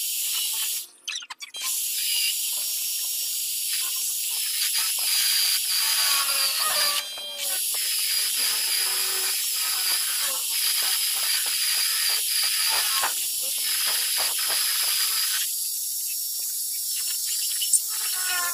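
Small metal lathe turning a round metal bar, the cutting tool peeling off curly chips with a steady high hiss and some wavering squeal, briefly dropping out about a second in and again around seven seconds in.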